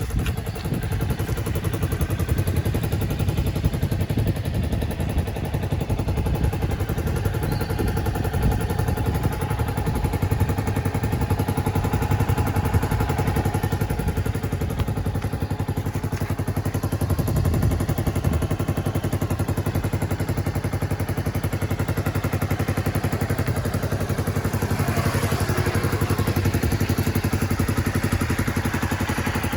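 Suzuki Skywave 250 scooter engine running steadily, a single-cylinder four-stroke with a clattery note.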